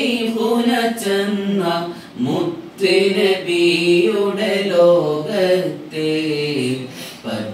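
A man singing a devotional song solo and unaccompanied, in long held notes that waver and glide between pitches, with a short breath pause about two seconds in.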